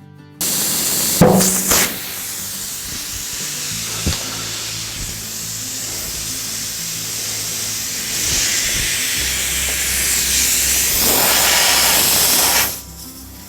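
Compressed air from an air hose blasting into a tubeless tire through a valve stem with its core removed, to seat the bead: a loud hiss that starts suddenly, with a sharp snap about a second in. The hiss grows louder later on and cuts off sharply shortly before the end.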